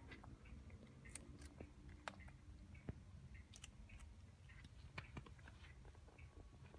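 A cat chewing dry fish-food sticks: faint, irregular crunches and small clicks.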